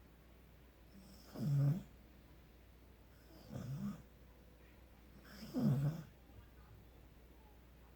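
A sleeping pet snoring: three snores, about two seconds apart.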